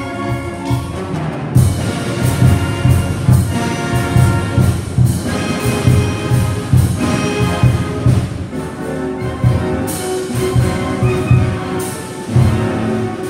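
Student concert band of clarinets, saxophones and brass playing, with many sustained notes over a steady low beat. The full band comes in louder about one and a half seconds in.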